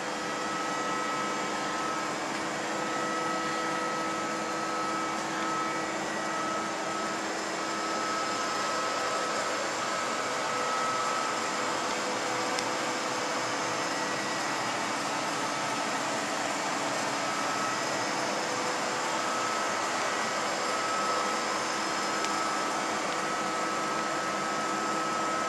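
Steady machine-shop hum: running machinery giving an even whir with several steady tones on top.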